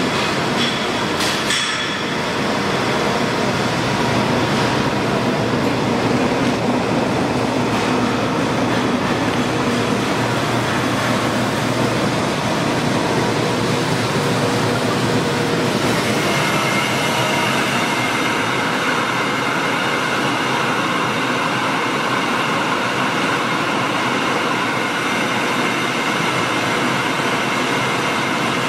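6FT-PA soybean grits milling machine running: a steady mechanical din with faint whining tones. The sound grows brighter about halfway through.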